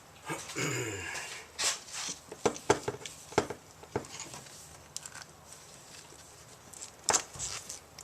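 Scattered clicks and knocks of a multi-tool being worked on a thick extension cord as it is cut, with a short, low voice sound falling in pitch about half a second in.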